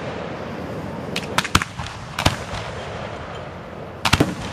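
Aerial firework shells bursting in a run of sharp bangs: three close together about a second in, one a little after two seconds, and two in quick succession near the end.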